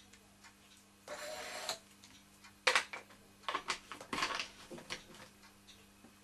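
Small objects being handled on a desk: a short hiss about a second in, then a run of sharp clicks and light clatter as the oiling syringe and glass jar are put aside, over a faint steady hum.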